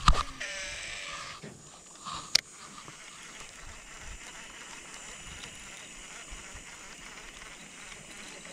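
A cast with a fishing reel: a click, then the spool whirring for about a second as line pays out, and a sharp click at about two and a half seconds. After that only a faint steady hiss while the crankbait is out on the water.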